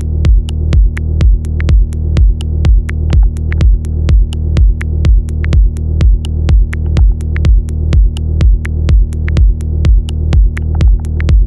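Electronic techno music with a steady kick drum about twice a second over a deep bass line, with crisp hi-hat ticks on top.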